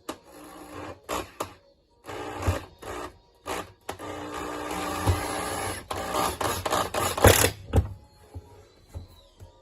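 Japanese handsaw cutting plywood: rasping saw strokes in irregular bursts, with a longer unbroken stretch in the middle and a quick run of strokes before it stops.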